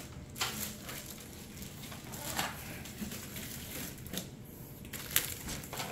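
Plastic wrap and paper packing rustling and crinkling as they are handled and pulled out of a glass aquarium, with a few sharper crackles.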